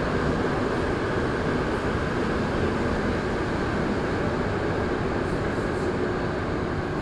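Montreal Metro MR-73 rubber-tyred train running at speed through a tunnel, heard from inside the car: a steady, even rumble of tyres and running gear.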